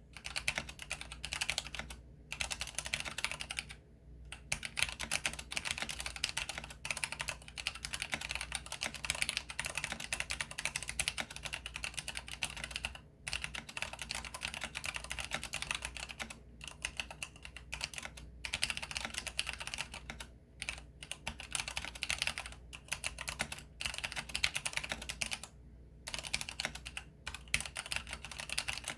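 Fast continuous typing on a Leopold 66-key compact keyboard: a rapid stream of key clicks with short pauses every few seconds.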